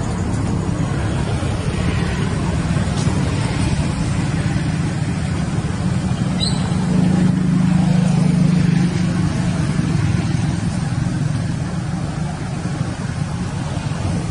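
A steady low motor rumble that swells briefly about seven seconds in, with a short high chirp just before the swell.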